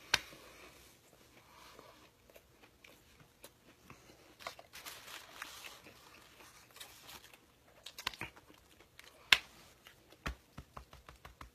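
Chewing and crunching on a Naked Chicken Chalupa, whose shell is made of fried chicken, with the foil-paper wrapper crinkling. Scattered sharp clicks, the loudest about nine seconds in.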